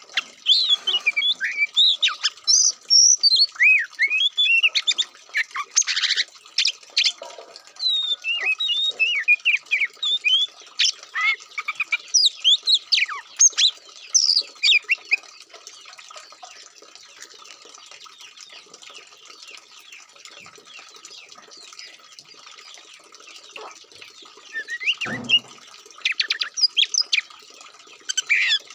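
Oriental magpie-robin (kacer) singing a fast, varied song of whistles, chirps and harsh notes. The song breaks off about halfway for several seconds, then resumes near the end.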